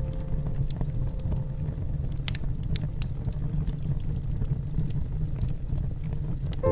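Wood fire burning: a steady low rumble with a few scattered sharp crackles and pops.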